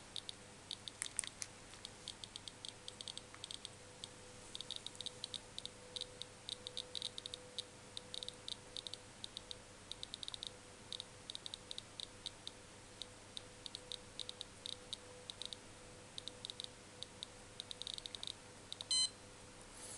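Handheld EB-13 ion tester clicking irregularly as it counts negative ions given off by ion balls, each click a detection; the clicks are scattered at first and grow dense after a few seconds, over a faint steady hum.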